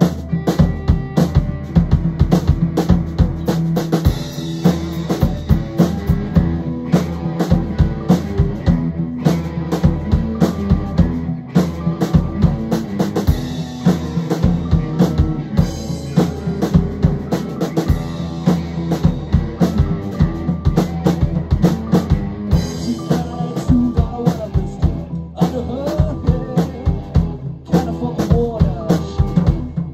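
A rock band playing live in a rehearsal room: a drum kit keeps a steady beat under two electric guitars and keys.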